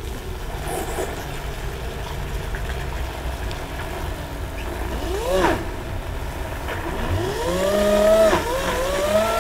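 Small DC drill motor driving a homemade 3D-printed water pump. It runs with a low hum, revs briefly up and down in pitch about five seconds in, and from about seven seconds winds up to a higher, steady whine.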